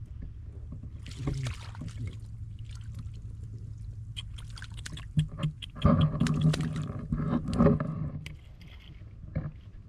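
Water sloshing and splashing in a shallow flooded field, with scattered knocks. A louder stretch with a voice comes in about six seconds in and lasts about two seconds.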